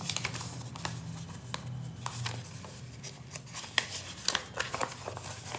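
Paper rustling and crackling as folded instruction leaflets are handled and opened out, with a denser run of sharp crinkles about four seconds in.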